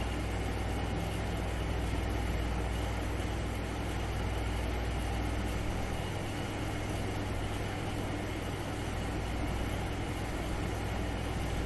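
A steady low hum with an even hiss over it; the deepest part of the hum weakens a little about halfway through.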